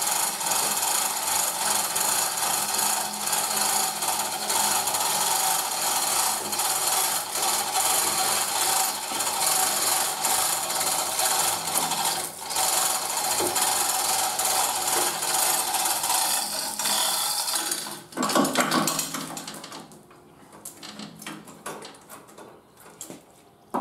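Manual chain hoist being worked to lower the mower: a steady, rapid ratcheting rattle of chain through the hoist for about eighteen seconds. It stops with a louder clank, followed by a few light clicks.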